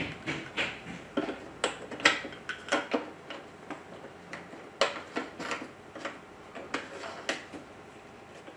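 Hard plastic plumbing fittings clicking and knocking as 1-inch threaded adapters are fitted onto a water-treatment bypass valve: irregular sharp clicks, several a second, thinning out near the end.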